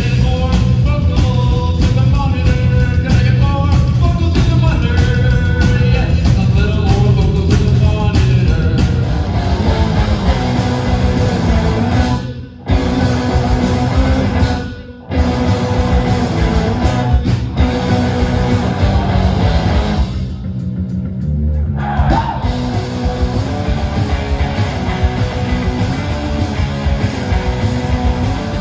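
Live rock band playing loud: distorted electric guitars, bass guitar and drum kit. The band stops dead for a moment twice near the middle, then crashes back in.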